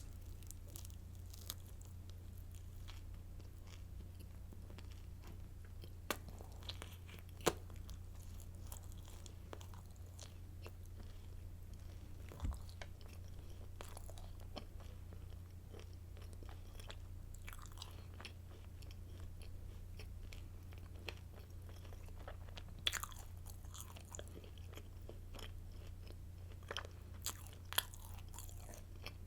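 Crunchy garlic baguette sticks being bitten and chewed close to a microphone: a run of small crackling crunches with a few sharper, louder bites, over a steady low electrical hum.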